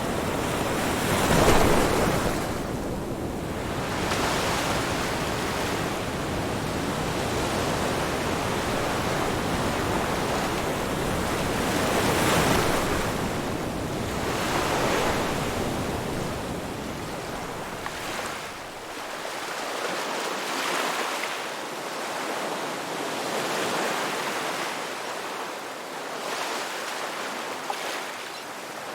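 Ocean surf: waves breaking and washing in, one swell after another, with the loudest break about a second and a half in.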